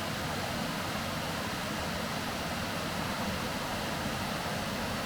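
Steady rushing of running water, an even hiss-like roar that holds at one level without a break.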